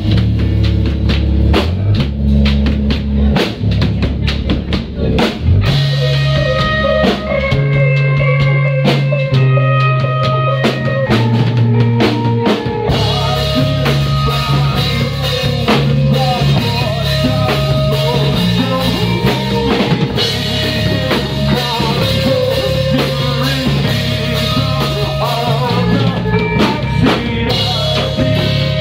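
Live rock band playing loudly: a Pearl drum kit keeps a steady kick-and-snare beat under electric guitar.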